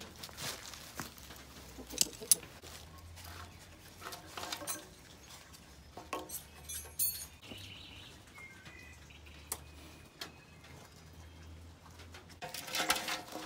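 Scattered clicks and knocks of a new exhaust muffler and its rubber hanger being handled, with two sharp knocks about two seconds in and a rustling burst near the end. Faint bird chirps come in around the middle.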